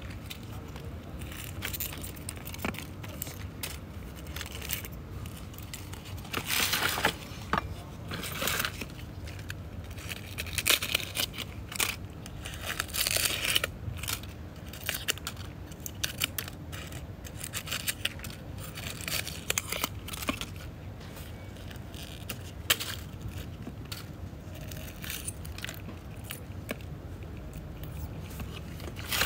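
Dry, dead succulent leaves being pulled and rubbed off by hand, making irregular crackling and rustling with sharp little clicks. The crackling comes in louder bursts about a quarter of the way in and again around the middle.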